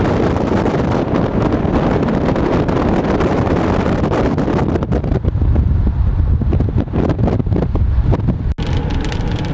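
Wind buffeting the microphone over the rumble of a moving vehicle, a loud, steady roar heaviest in the low end, broken by a brief drop-out about eight and a half seconds in.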